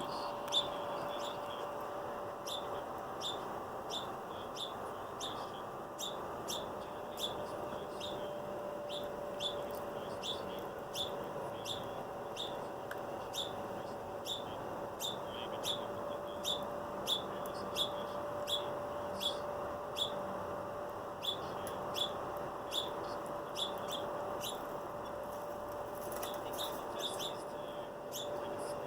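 A small bird chirping over and over in short, high chirps, about one to two a second, over a steady hum.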